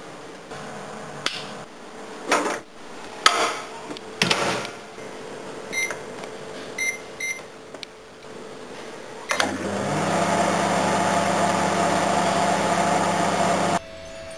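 A few knocks and clatters, then several short beeps from a Sharp microwave oven's keypad as the cooking time is set. About nine seconds in the oven starts with a click and runs with a steady hum, which stops abruptly near the end.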